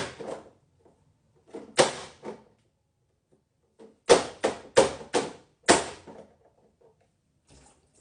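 Hand-operated vegetable chopper chopping red bell pepper, giving sharp plastic clacks: one, another about two seconds later, then a quick run of about five.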